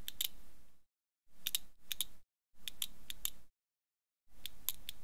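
Clockwork clicking of a wind-up doll's key and mechanism: four short groups of two to four sharp clicks, each separated by about half a second of silence.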